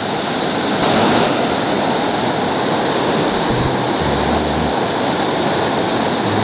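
River water rushing over a rocky ledge and riffle, a steady loud rush of white water.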